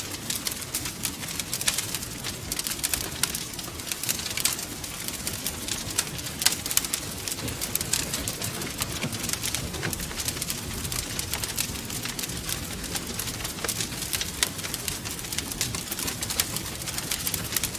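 Wood fire crackling: a steady stream of irregular sharp pops and snaps over a continuous low hiss and rumble of burning logs.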